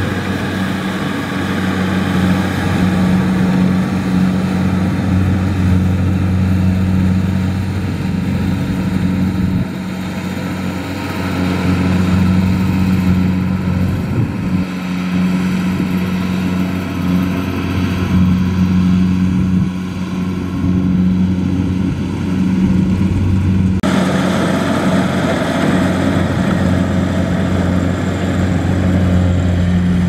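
Kubota DC70 combine harvester's diesel engine and machinery running steadily as it cuts and threshes rice, a constant loud drone. About three-quarters of the way in the sound turns abruptly brighter and harsher.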